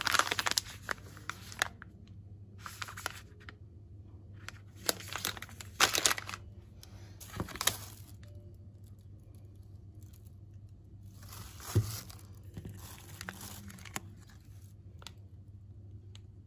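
Plastic and foil food packaging crinkling and rustling in handling, in several bursts, with a soft knock about twelve seconds in, over a faint steady low hum.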